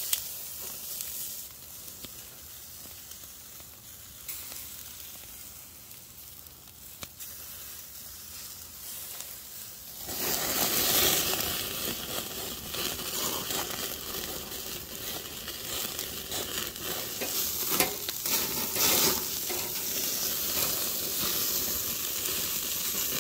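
Beef intestines (gopchang, daechang and makchang) sizzling on a wire grill over charcoal, getting louder about ten seconds in as fat drips and flares on the coals. A few short knocks near the end.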